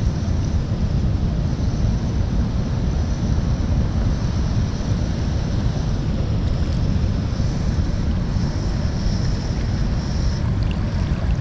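Wind buffeting the microphone: a steady low rumble, with a thin high hiss above it that swells and then cuts off shortly before the end.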